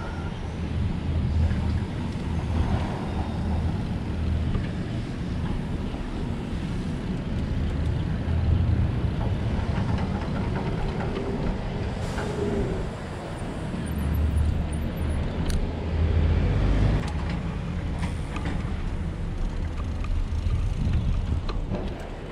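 Road noise heard from a moving bicycle: an uneven low rumble of traffic and air movement that swells and eases, with a few faint clicks.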